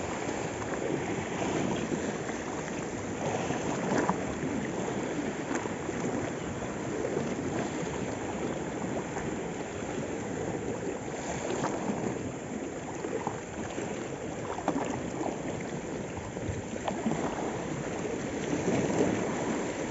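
Small sea waves lapping and splashing against shore rocks: a steady, uneven wash of water.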